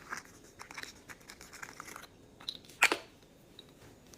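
Plastic packaging crinkling and crackling as small miniature pieces are unwrapped, with one sharp click of plastic a little before three seconds in.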